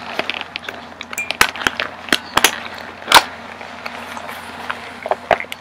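Metal clasp on a black handbag being worked open and shut, a run of sharp clicks and snaps, the loudest about three seconds in, with rustling as the bag is handled.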